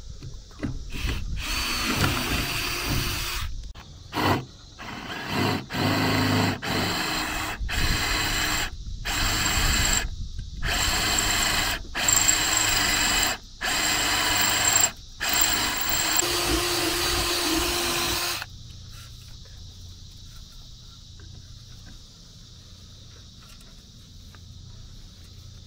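Cordless drill boring through an aluminium bracket plate with a twist bit, running in a string of bursts with short stops for most of the first eighteen seconds. Once it stops, a steady high chirring of insects is left.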